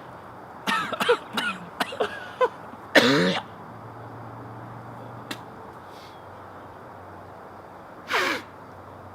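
A man coughing and clearing his throat in short pitched bursts, with a louder cough about three seconds in and one more near the end.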